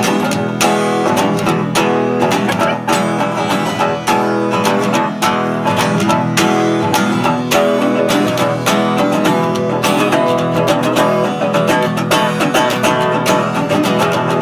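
Acoustic guitar strumming a steady rhythm: the instrumental intro of a folk song, just after the count-in and before the singing begins.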